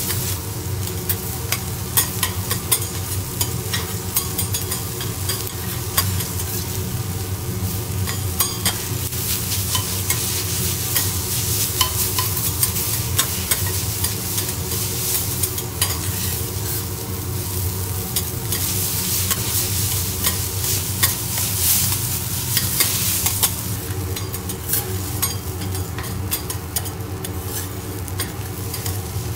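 Fried rice sizzling on a steel teppanyaki griddle while two metal spatulas chop, scrape and clack against the hot plate in quick, irregular strikes. A steady low hum runs underneath.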